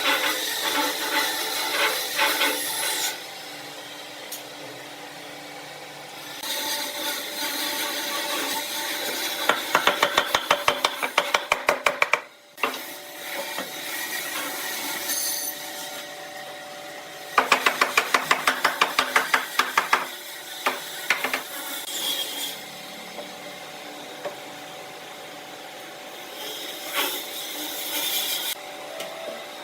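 Hand tool working wood, with stretches of scraping and two spells of rapid, even strokes at about four to five a second.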